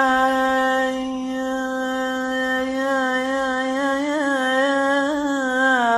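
A man's voice holding one long sung note of an Iraqi mawwal, steady in pitch, with small ornamental wavers in the second half.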